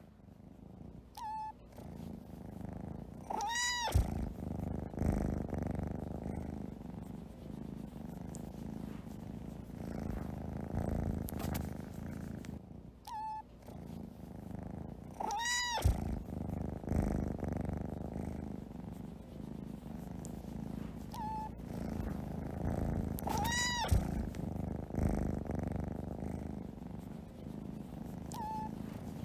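Domestic cat purring steadily up close, with short meows that come in pairs: a faint brief one, then a louder one about two seconds later, four times over.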